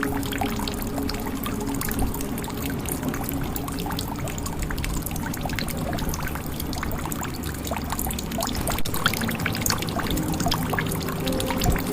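Water pouring and trickling into a jug, a steady splashing stream full of small drips and splashes.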